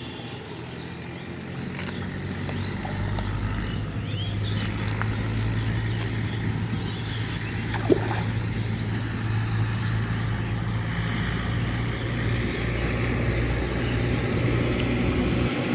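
An engine runs steadily with a low, even hum and slowly gets louder, with one sharp click about eight seconds in.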